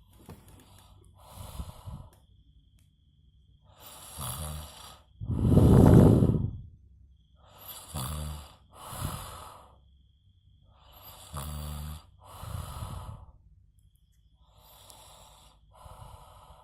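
A man snoring hard, with a rasping, rattling snore on each breath. The breaths come in pairs about every three to four seconds, about five cycles in all, and the loudest snore is about six seconds in.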